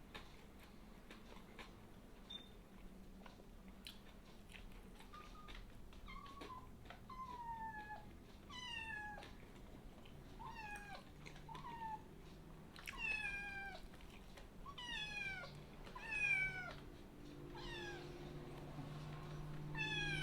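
Kitten meowing over and over, short high calls that each fall in pitch, starting about six seconds in and coming roughly once a second. She is mad because she can't get up to the table.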